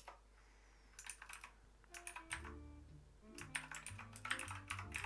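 Computer keyboard typing in short runs of keystrokes, with soft background music coming in about two seconds in.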